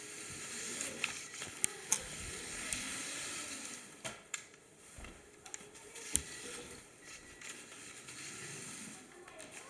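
Lego Technic remote-control car driving, a hissing rattle of its wheels and plastic parts running over the surface. Several sharp clicks and knocks break in, the loudest about six seconds in.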